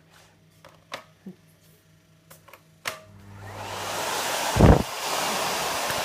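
A few light clicks and knocks, then about three seconds in the Miele Compact C2 canister vacuum cleaner is switched on and its motor spins up to a steady, loud running noise. A heavy thump comes about a second later.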